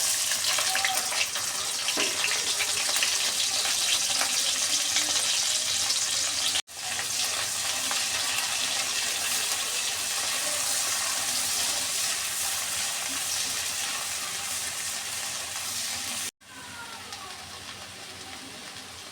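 Sweet pumpkin frying in hot oil in a pan, a steady sizzle. It is broken by two abrupt cuts, and the sizzle is quieter after the second one, near the end.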